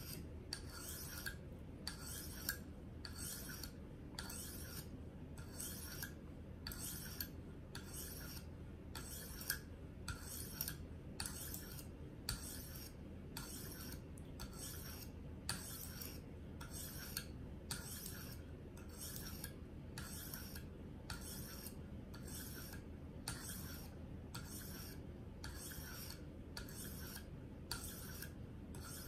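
A 4-inch Henckels paring knife's steel edge stroked along a 300-grit sharpening stone on a KME guided sharpening system: a steady run of short scraping rasps, a little over one stroke a second. This is the second side's set of 30 strokes at coarse grit, raising a burr along the edge.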